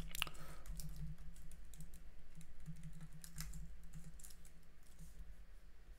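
Computer keyboard typing: irregular keystrokes as code is being typed, thinning out toward the end.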